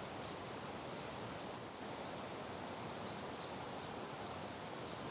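Steady, even outdoor rushing noise, with a few faint high ticks scattered through it.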